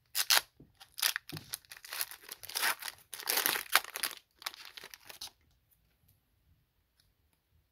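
Foil wrapper of a baseball card pack being torn open and crinkled by hand, with a run of sharp rips and crackles that stops about five seconds in.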